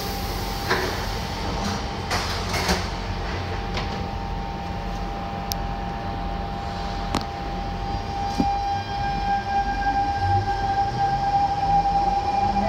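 Train doors sliding shut with a few knocks in the first few seconds. About eight seconds in, the SMRT C651's Siemens GTO-VVVF traction inverter and motors start up with a set of rising whines as the train pulls away under power.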